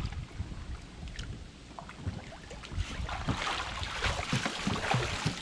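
Lake water sloshing and splashing as a swimmer hauls himself out onto a wooden dock, growing louder about three seconds in as water streams off him, with a steady rumble of wind on the microphone.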